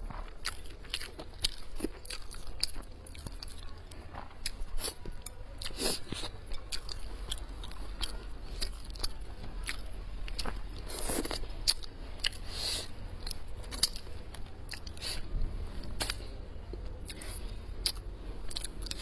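Close-miked eating: a person biting and chewing crisp food, with many short crunches and clicks, over a steady low hum.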